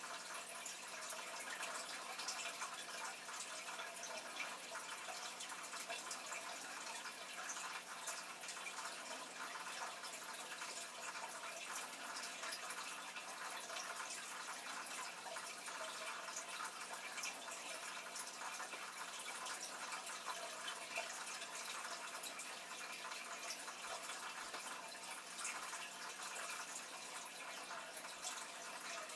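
Aquarium water trickling and bubbling steadily, a continuous fine crackle of splashing, over a steady low hum.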